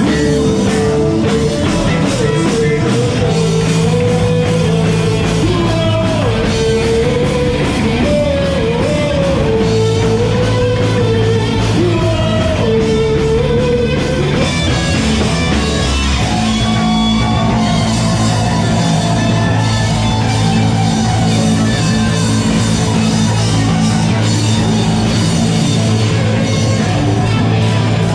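Rock band playing live, loud, with electric guitar, bass and drum kit. A lead melody bends and slides in pitch through the first half, then the band carries on with held chords over a steady bass.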